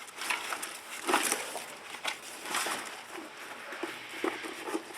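Irregular rustling and crackling from a potted bird nest fern, its wire and potting material being handled, with a few louder crinkles about a second in and again midway.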